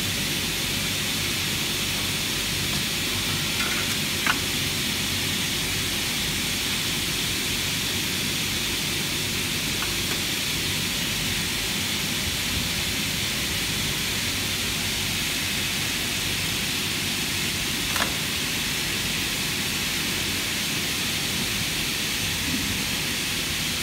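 Single-head aluminium cutting saw (Atech Crater A 450, 2.2 kW motor, 450 mm blade) running steadily, a constant hiss with a low hum. Two short clicks come about four seconds in and again near eighteen seconds.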